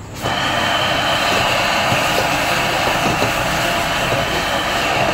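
Loud, steady hiss of water flashing to steam in a very hot wok, starting suddenly, as the wok is scrubbed with a wok brush over a flaring gas burner.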